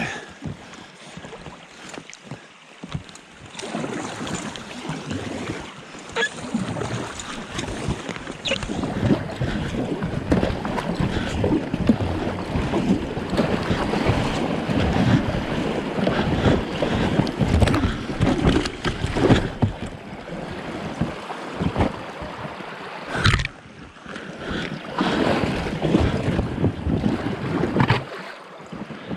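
Thin lake ice crunching and crackling as a paddle breaks it and a packraft pushes through it, starting a few seconds in and going on in a busy run of cracks and scrapes, with one sharp knock near the end.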